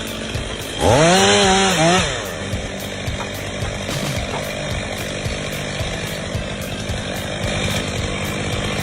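Chainsaw running, revved up hard for about a second about a second in, then running on steadily at lower speed.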